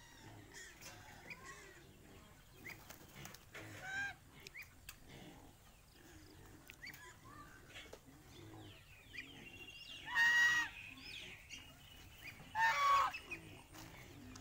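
Domestic goose honking: a softer honk about four seconds in, then two loud, half-second honks about ten and twelve and a half seconds in, with faint high chirps in between.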